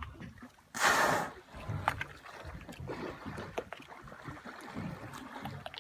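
Water lapping and slapping against a small open boat's hull, with scattered small knocks. About a second in, a loud rushing whoosh lasts about half a second.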